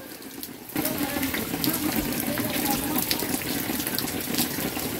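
Water running and splashing steadily, with many small drips and splashes, starting abruptly about a second in.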